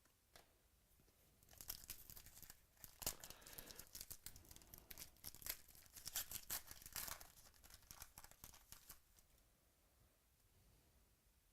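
Trading-card pack wrapper being torn open and crinkled by hand: a run of sharp crackling and tearing sounds that starts about a second and a half in and stops around nine seconds in.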